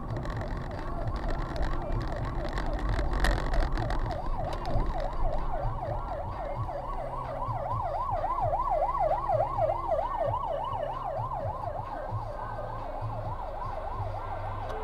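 Police car siren in a fast yelp, its pitch sweeping up and down about three times a second. It comes in about four seconds in and is loudest toward the middle, over the low hum of the car's engine and road noise.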